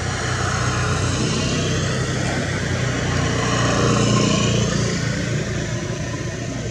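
A motor vehicle passing by, its engine and road noise swelling to a peak about four seconds in and then fading.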